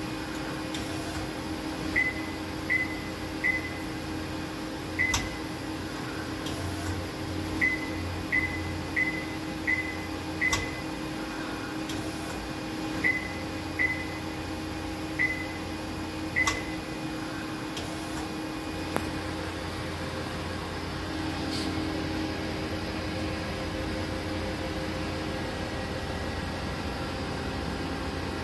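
DMG MORI NLX2000SY turning center running with a steady electrical hum, while short high electronic beeps sound about a dozen times at uneven intervals through the first half. The hum grows a little louder about two-thirds of the way in.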